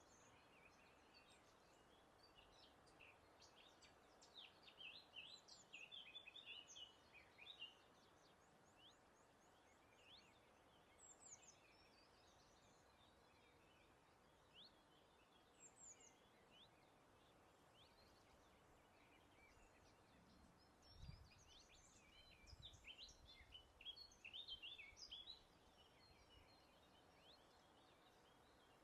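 Faint songbird song: two bouts of rapid, jumbled chirping and trilling, with a few single chirps in between, over a faint steady hiss of breeze.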